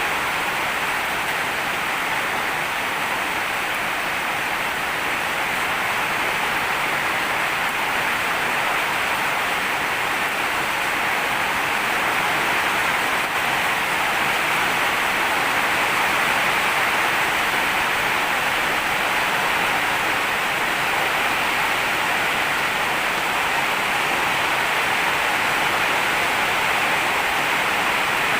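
Steady heavy rain, an even hiss of falling water without separate drops or gusts.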